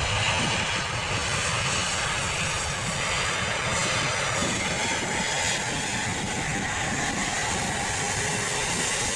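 Turbofan engines of an Airbus A330 twinjet airliner rolling down the runway close by: a steady, loud jet noise with a high whine that bends down in pitch about halfway through as the aircraft goes past.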